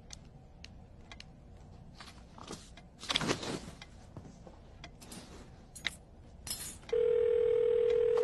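Soft rustling and small clicks of handling, with one louder rustle about three seconds in, then a loud steady electronic tone starting about a second and a half before the end.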